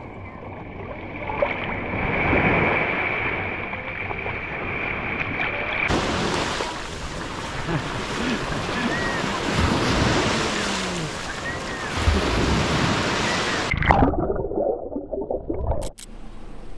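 Small waves washing and water splashing at the shoreline, with wind on the microphone. The sound changes abruptly a few times and cuts off sharply near the end.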